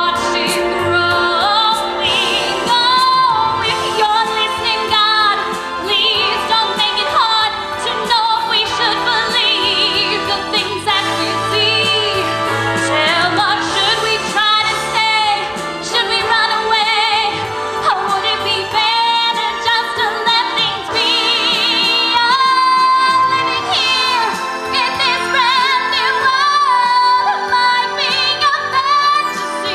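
Music with women singing, their held notes wavering in vibrato over a full instrumental accompaniment.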